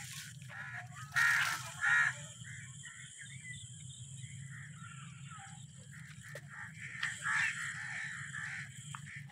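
Crows cawing: two loud caws about a second apart near the start and another a few seconds later, over a steady background of smaller birds chirping.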